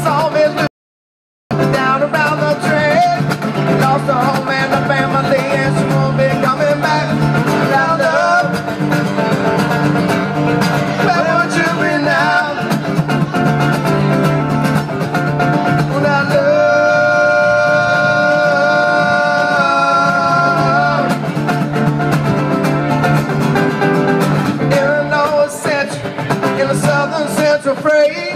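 Two acoustic guitars strummed and picked live, with a male voice singing in places. The sound cuts out completely for under a second near the start.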